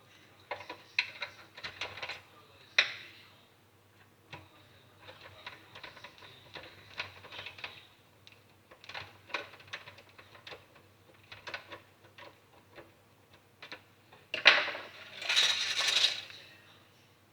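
Small metal and plastic parts of an Xbox 360 Slim being handled: irregular clicks, taps and light rattles, and a louder clattering stretch of about two seconds near the end.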